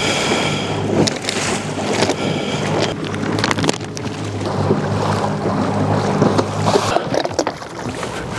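A small boat's motor hums steadily and cuts out about seven seconds in, under wind on the microphone and choppy water. Crackles of a plastic bait bag being handled run through it.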